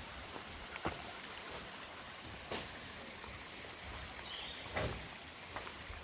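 Steady rushing background noise with a few light knocks, about one, two and a half and five seconds in.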